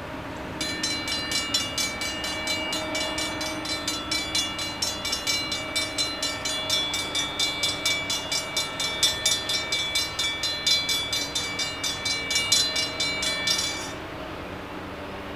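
Railroad grade-crossing warning bell ringing in rapid, evenly spaced strikes while the crossing gates lower for an approaching train. It stops abruptly near the end.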